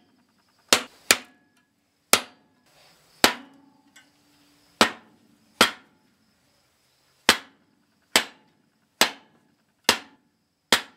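About eleven sharp knocks, irregularly spaced at roughly one a second: a pitchfork's new wooden handle being knocked down against a hard surface to drive the fork's tang into the handle's pre-drilled hole and seat it.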